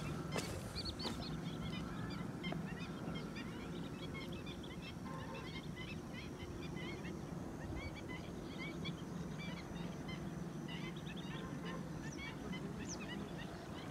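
Many birds calling at once, a dense scatter of short chirps, over a steady low hum.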